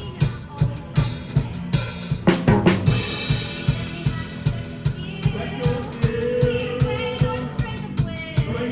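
A drum kit playing a steady beat of kick and snare hits under the pit band's music for a stage musical. Held pitched notes from the other instruments come in about five seconds in.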